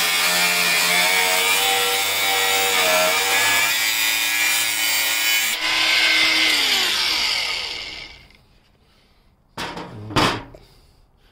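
A WORKPRO 20V cordless angle grinder's cutting disc is cutting through metal: a loud grinding noise with a steady motor whine. About six seconds in, the cut ends and the motor winds down, falling in pitch until it stops. Two sharp knocks follow near the end.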